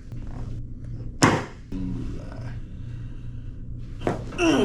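A single sharp, sudden snap about a second in from a Ring Dinger chiropractic adjustment, the quick strap pull on the patient's spine. Near the end comes a short voice sound that falls in pitch.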